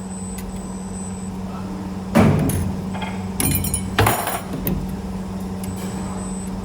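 CNC wire forming machine running with a steady motor hum, with a loud metallic clank about two seconds in and three lighter clanks over the next few seconds as the 4.7 mm wire is bent and punched.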